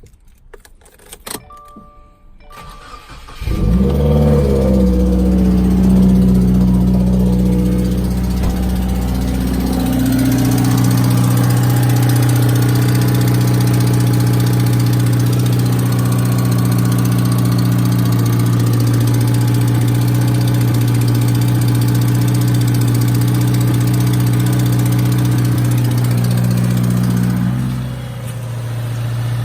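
2018 Subaru WRX's turbocharged 2.0-litre flat-four, run with its muffler and resonator deleted, starts about three and a half seconds in and idles, the idle settling lower about ten seconds in. It carries a clicking noise that the owner fears may be rod knock; the dealer says it could be anything from the clutch throw-out bearing to a broken header.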